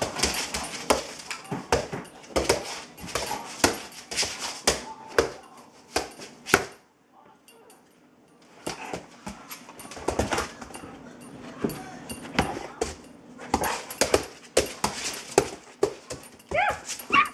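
A dog's claws clicking and scratching on a laminate floor in quick, irregular scrabbles as it paws at a spot of reflected light, pausing briefly about seven seconds in. A short whine near the end.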